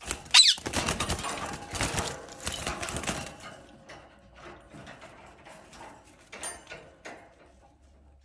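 Untamed ring-necked parakeet gives one sharp screech falling in pitch, then a loud scuffle of flapping and rustling for about three seconds as it resists being handled, fading to lighter rustles and clicks.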